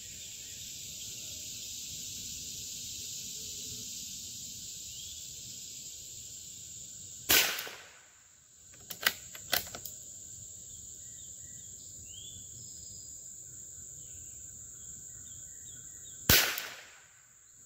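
Two shots from a Howa M1100 bolt-action .22 LR rifle firing subsonic SK Rifle Match ammunition, one about seven seconds in and one near the end. Two sharp clicks follow the first shot. Crickets trill steadily throughout.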